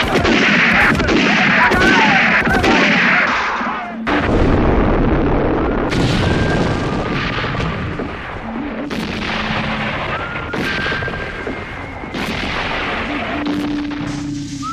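Film battle sound effects: gunfire and cannon fire, a dense din of shots for the first few seconds, then a series of separate heavy cannon booms a second or two apart.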